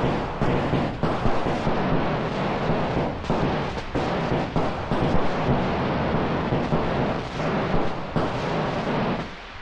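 Fireworks going off in a rapid barrage: many sharp bangs over continuous crackling and hissing, stopping abruptly about nine seconds in.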